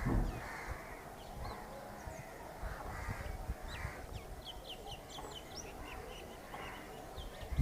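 Crows giving short hoarse caws at intervals, with small birds chirping high and thin in the background, most busily midway.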